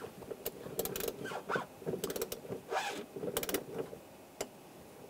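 Hand ratchet clicking in several short runs as a socket on an extension turns the radiator drain plug closed.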